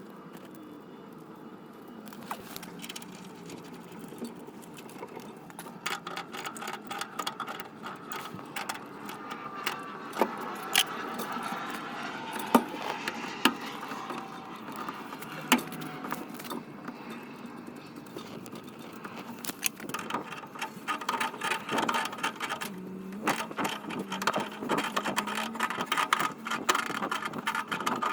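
Scattered metallic clicks, clinks and scrapes of a threaded pipe adapter and hand tools being handled and screwed together, fitting the water heater's relief-valve discharge pipe, with the clicks coming thicker in the second half.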